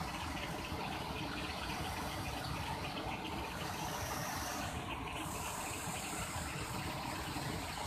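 Muddy floodwater of a river in spate rushing across a submerged concrete causeway and pouring off its edge, a steady, unbroken rush of water.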